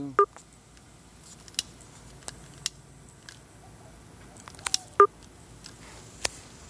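Short electronic beeps from the phone's buttons, one just at the start and another about five seconds in, with a few sharp clicks and taps of the phone being handled in between.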